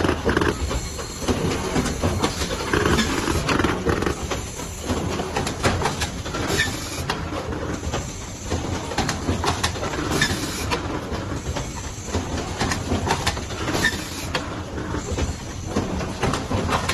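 An automatic box-forming machine running: a steady mechanical clatter with frequent short clicks and knocks from its moving heads and forming press.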